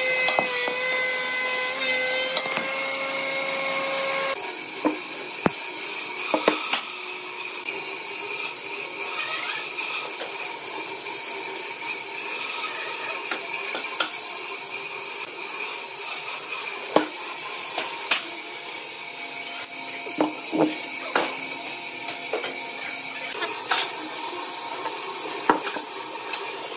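Thickness planer running with a steady whine as a pine block feeds through. About four seconds in it gives way to a steady hiss with scattered light taps and clicks of a steel square, pencil and wooden marking gauge on the wood.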